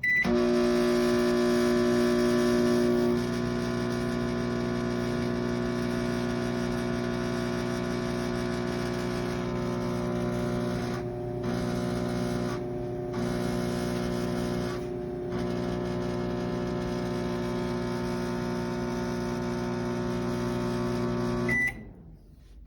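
Toshiba air fryer–microwave combo oven running with a steady hum made of many buzzy tones, dipping briefly three times in the middle and cutting off suddenly near the end, with a short high tone at the start and again at the stop.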